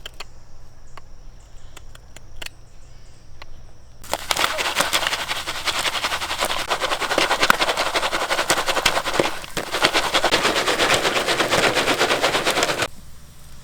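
Jiffy Pop popcorn popping over a campfire in its foil pan: a few scattered pops, then from about four seconds in a dense, rapid run of pops that stops abruptly near the end.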